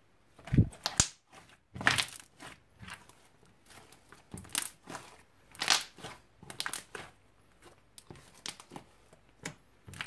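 Hands kneading and squeezing thick slime on a table, making irregular wet squishes and sticky clicks. The loudest comes about half a second in, with a low thud as the slime is pressed down.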